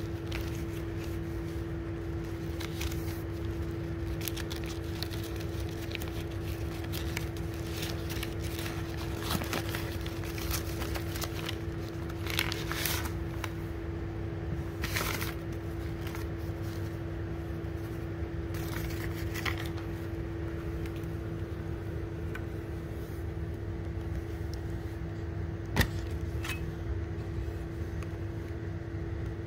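Paper wrapping crinkling and rustling in short bursts as a parcel is unwrapped and a box opened, over a steady low hum with one constant tone; a single sharp click near the end.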